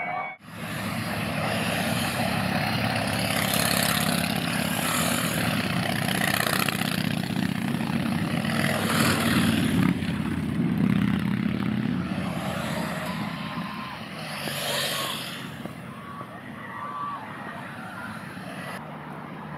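Fujiyama steel roller coaster train running along its track, a steady heavy rumble that fades away over the last several seconds.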